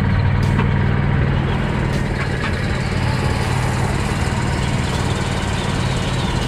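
Golf cart running along at a steady speed, a continuous low drone with rolling and wind noise over it.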